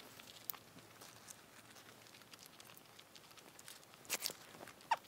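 Faint eating sounds: a fork picking at loaded fries in a foam takeout box, then mouth clicks and lip smacks as a forkful is taken. The sounds are a few soft clicks, with a louder cluster about four seconds in.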